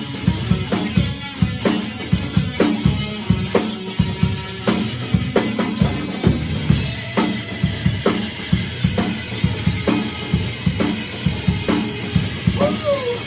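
Drum kit played at a fast, steady beat: kick and snare hits under a constant hiss of cymbals. A brief sliding tone cuts in near the end.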